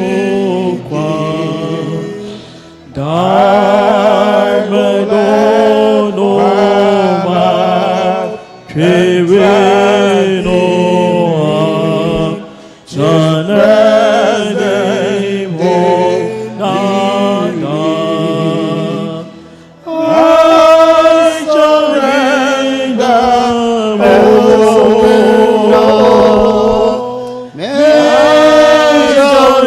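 Slow worship hymn sung by voices in long held phrases, with short breaks between lines.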